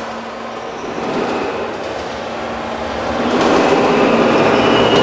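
New York City subway train rumbling through the station, growing markedly louder about three seconds in as it draws near, with a thin, steady, high wheel or brake squeal over the rumble.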